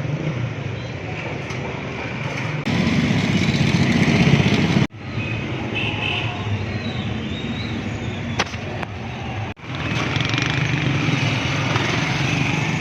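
Busy street traffic, motorcycles and cars running past, cut abruptly three times into different stretches of the same din.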